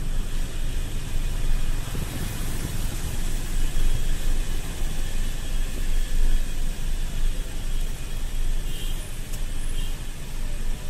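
Steady, uneven wind rumble on the microphone of a camera riding along a road, mixed with road and traffic noise.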